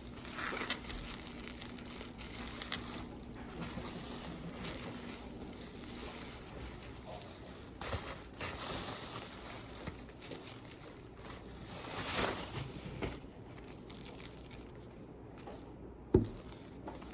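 Paper and packaging crinkling and rustling as a parcel is unpacked by hand, with a short knock near the end.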